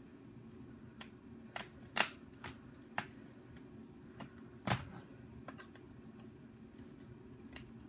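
Irregular plastic clicks and clacks from a Nerf Hyperfire blaster's shell and parts being handled and worked apart, about ten in all, the loudest a knock a little before five seconds in. A faint steady hum runs underneath.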